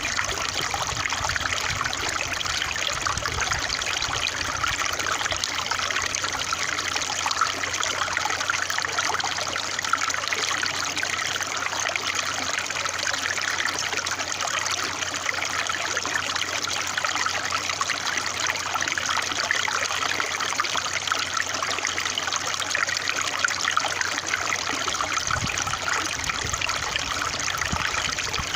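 Running water of a small stream trickling and babbling steadily, with no change.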